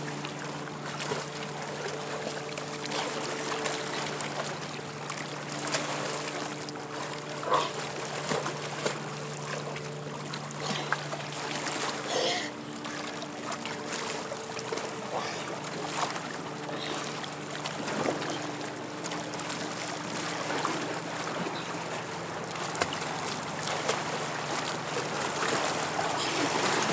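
Water splashing and sloshing against rocks around people swimming, with small splashes now and then. Underneath runs a steady low motor hum that shifts pitch a couple of times.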